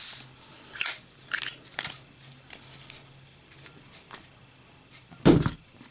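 Brass Zippo lighter with a brass insert: metallic clicks and clinks as the lid is flipped open and the wheel struck, then a single loud metal clack about five seconds in as the lid drops shut on the lit lighter in a drop test.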